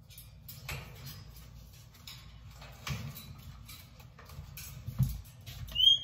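Scattered light clicks, taps and rustles of parrots and handling in a bird room, with a dull thump about five seconds in. Just before the end comes a short, high parrot chirp, the loudest sound.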